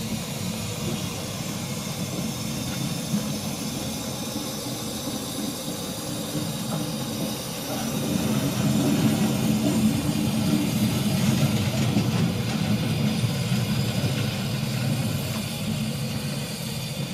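Romney, Hythe & Dymchurch Railway 15-inch-gauge steam locomotive No. 9 being turned on a turntable: a steady low rumble that grows louder about halfway through, with a thin hiss of escaping steam.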